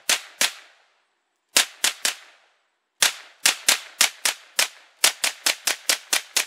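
Semi-automatic 9x19mm fire from a GSG MP40P pistol: about eighteen sharp shots in quick strings of two, three, six and seven, with short pauses between strings.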